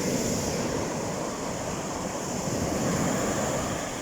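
Sea waves breaking and washing onto the shore, swelling twice, with wind buffeting the microphone.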